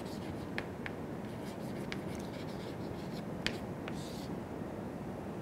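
Chalk writing on a chalkboard: sharp taps and short scratchy strokes as words are written, stopping about four seconds in, over a steady low room hum.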